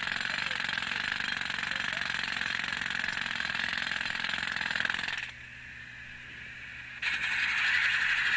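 Jackhammer hammering in a rapid, continuous rattle. It stops abruptly about five seconds in, leaving a steady low engine hum for under two seconds, then starts again.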